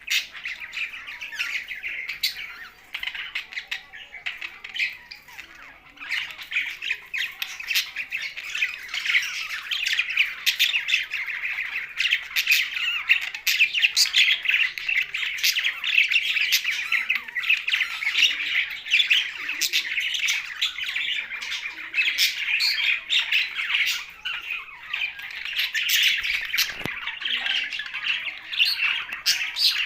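Pet budgerigars and parrots chattering and squawking together, many calls overlapping without pause, a little quieter for the first few seconds.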